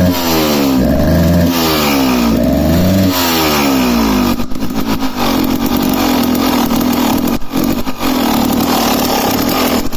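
2007 KTM EXC 300 two-stroke single-cylinder engine blipped about three times, the revs falling away after each, then settling to a lower, uneven run with brief stumbles: the engine is misfiring.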